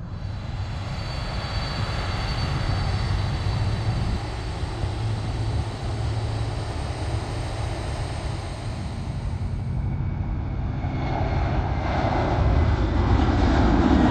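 Jet airliner's engines at takeoff power during the takeoff roll and climb-out: a steady jet noise with a high fan whine, growing louder as a deep rumble builds over the last few seconds.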